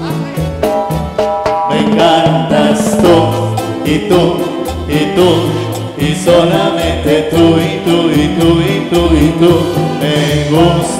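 Live Latin band playing an instrumental passage of the song: an electronic keyboard over timbales, drum kit and a steady dance beat with a regular percussion tick.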